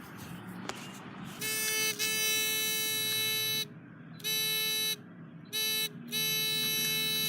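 Metal detector sounding a steady, buzzy target tone, switching on and off four times as it passes over metal; the last tone holds on.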